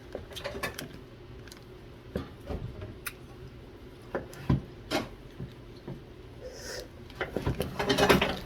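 Scattered light knocks and clicks of kitchen work, dishes and utensils being handled, over a low steady background hum, getting busier near the end.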